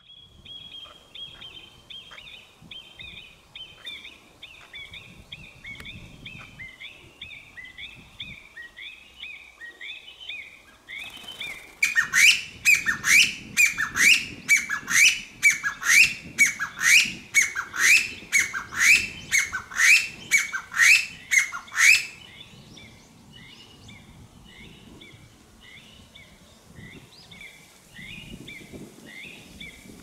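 Chinese bamboo partridge calling loudly, which the uploader takes for a threat to an intruder. It gives a series of about twenty rising notes, roughly two a second, for about ten seconds in the middle. Fainter, quicker rising bird calls go on before and after.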